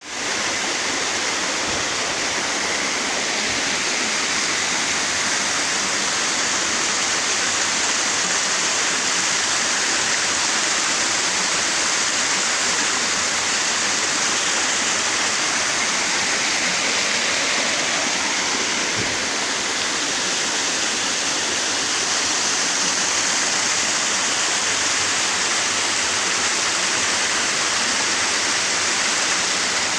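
Waterfall: a steady rush of falling and splashing water, more hiss than rumble.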